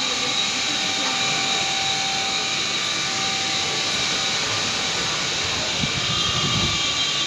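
Strong storm wind rushing steadily through trees, with gusts starting to hit the microphone near the end.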